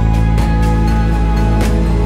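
Background music: held chords with a soft, steady beat.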